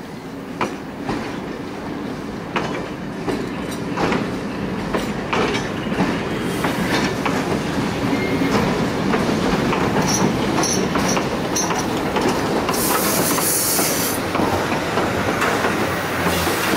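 Railway wagons rolling slowly past with wheels clicking over rail joints, then a VR Hr1 steam locomotive coming alongside, its rolling noise growing louder. A loud burst of steam hiss about 13 seconds in.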